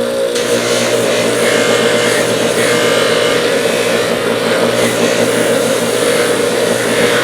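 Electric motor of a spinning abrasive or polishing wheel running steadily with a hum, with a rougher, shifting grinding noise above it as the steel pliers are worked on the wheel.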